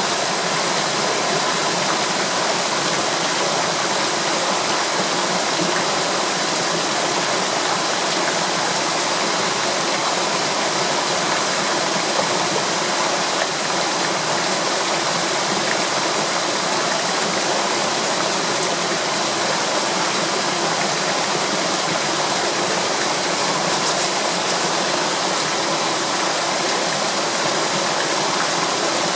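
Waterfall pouring with a steady, even rush of falling water.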